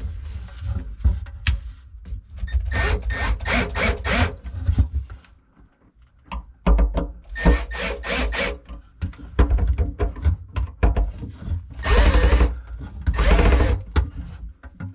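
Cordless drill/driver run in short bursts, about four times, tightening the screws of a garbage disposal's sink mounting ring, with tool handling and knocks between runs.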